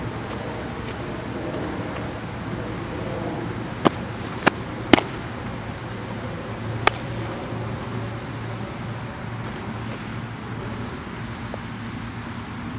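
Sharp pops of a softball smacking into a catcher's mitt, three within about a second and one more about two seconds later, over a steady hum of road traffic.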